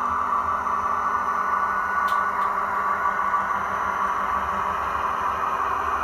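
Model train running: a steady whirring hum from a Märklin HO-scale model of a NOHAB diesel locomotive moving slowly along the track, with two faint clicks about two seconds in.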